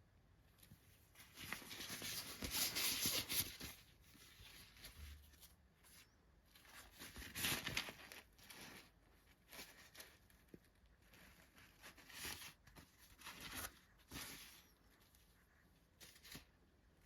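Doll packaging being opened by hand: irregular bursts of tearing and crinkling of plastic and cardboard, the loudest about two seconds in and others around halfway and near the end, with small clicks between.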